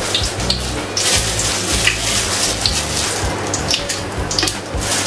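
Whole spices (bay leaf, star anise, cumin) sizzling and crackling steadily in hot oil and ghee in an aluminium pot.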